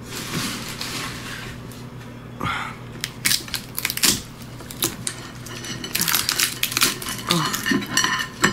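Cooked crab shell being cracked and pulled apart by gloved hands: a run of sharp cracks and snaps with crunching and tearing. It grows busier from about three seconds in.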